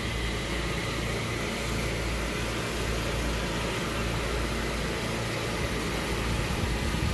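Champion 8750-watt open-frame inverter generator running steadily under load, a low even hum under a broad hiss.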